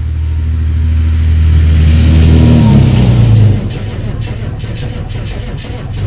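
Chevrolet 6.5 L turbo diesel V8 running, swelling louder over about three seconds with a high turbo whine, then dropping back to a steady idle about three and a half seconds in.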